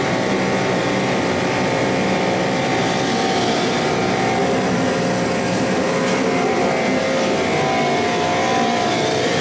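Pressure washer running steadily, a constant motor whine over the hiss of the water jet spraying a foam-covered pickup.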